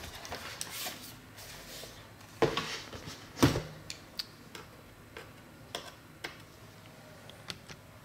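Laptop's metal bottom case being handled on a desk, knocking twice as it is turned and set down, a second apart, then a few faint separate ticks from handling and a small screwdriver near the case.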